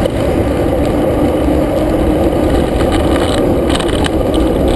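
Street traffic heard from a moving bicycle: a steady low rumble of engines and tyres, with a van driving just ahead.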